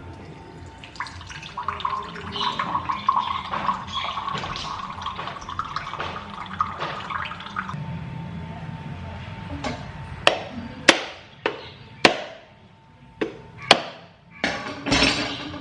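Water running for several seconds, then a string of sharp clicks and knocks like kitchen utensils and dishes being handled, over soft background music.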